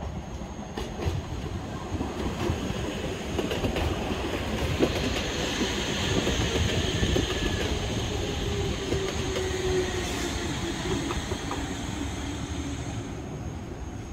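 Appenzeller Bahnen Stadler Tango electric train rolling slowly past at close range as it pulls into the station, wheels clicking over rail joints and points. A motor whine falls in pitch as it slows.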